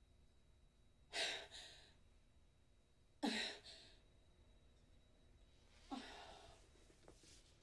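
A woman's quiet, shaky breaths: three sighing gasps a couple of seconds apart, as she comes round from a nightmare.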